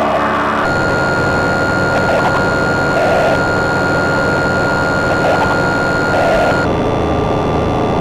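Loud, dense noisy drone with a few steady high tones held over it. Its texture changes abruptly about a second in and again near the end.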